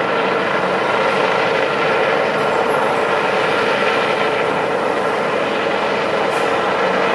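Rescue helicopter hovering low, its rotor and engines running with a steady, loud noise.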